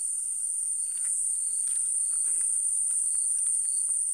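Crickets chirring in a steady, continuous high-pitched drone, with a few faint clicks over it.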